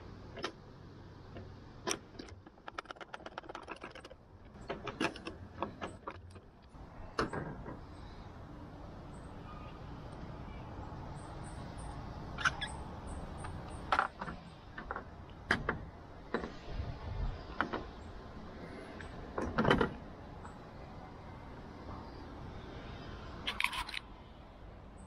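Scattered clicks and knocks of hard plastic roof-rail covers and fasteners being handled and set down on a car roof, with a quick run of ticks about three seconds in and the loudest knock about twenty seconds in.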